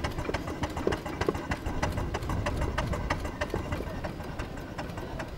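Miniature steam traction engine on the move, its exhaust chuffing in an even beat of about four a second.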